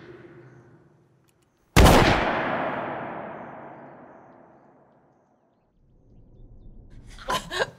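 A single handgun shot about two seconds in, sudden and very loud, with a long echo that dies away over about three seconds.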